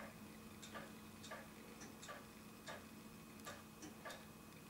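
Near silence with faint light ticks, one every half second to a second.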